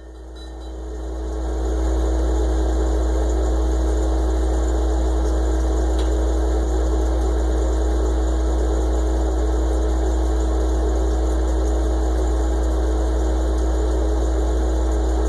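Mini fridge running with a steady low mechanical hum and a fainter steady higher tone. The hum fades up over about the first two seconds, then holds level.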